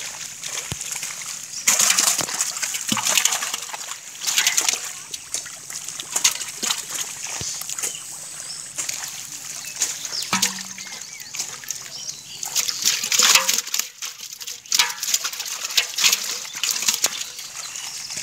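Splashing and sloshing in shallow muddy pond water as carp are caught by hand, coming in short irregular bursts.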